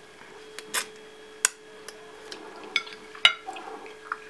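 Fork stirring tagliatelle among mussels in a frying pan, with several sharp clicks of the fork and mussel shells knocking against the pan and each other.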